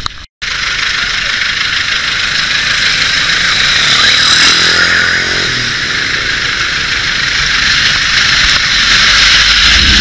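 Steady street traffic noise from motorbikes and cars, a dense high hiss, with a motorbike engine passing close about four to five seconds in. A brief dropout near the start.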